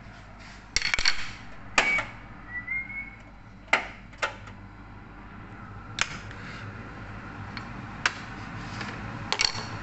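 Cooking oil heating in a nonstick wok over a gas burner, with scattered sharp crackles and pops over a steady low hum, and a short rising squeak about two and a half seconds in.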